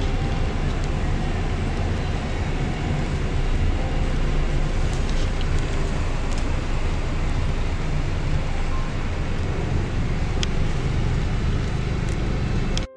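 Car cabin noise while driving slowly: a steady low road-and-engine rumble with a few light clicks. It cuts off suddenly near the end.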